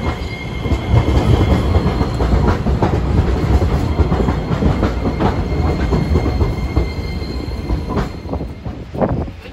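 Hiroden 5100-series Green Mover Max low-floor tram rolling past at close range: a low rumble with wheels clicking over the rail joints and points. The rumble dies down near the end as the tram moves away.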